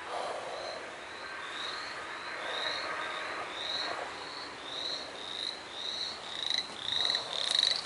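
Frogs calling: a run of short, rising, high-pitched peeps about twice a second, getting louder toward the end, over a fainter steady chorus.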